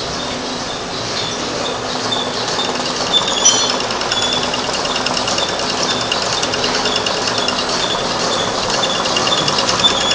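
Industrial sewing head of a wet-mop making machine running steadily as it stitches rows of mop yarn onto tape. It makes a fast even clatter of stitches, with a short high tone repeating about twice a second.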